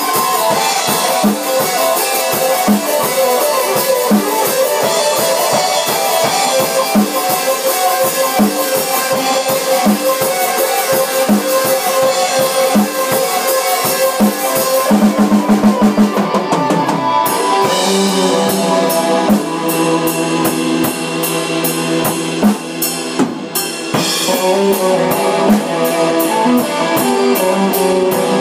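A live band jam of drum kit and guitar, played loud with a steady beat; about halfway through, a rapid drum fill leads into a new section.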